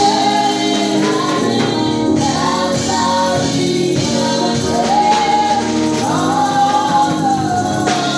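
Congregation singing a gospel hymn with instrumental backing and tambourine.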